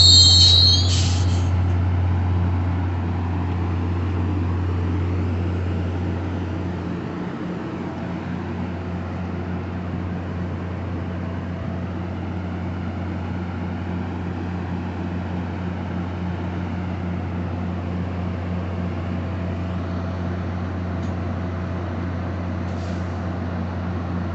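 A high-pitched train brake squeal that cuts off about a second in, then the steady low hum of the MBTA commuter train's diesel locomotive running while the train stands.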